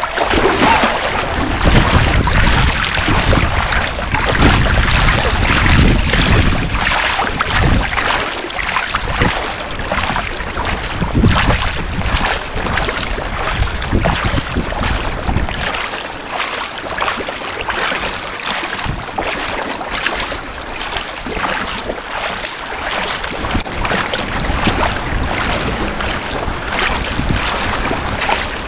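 Choppy sea water splashing and sloshing around a swimmer doing front crawl, with heavy low buffeting of water and wind on the microphone at the surface that eases for a while past the middle.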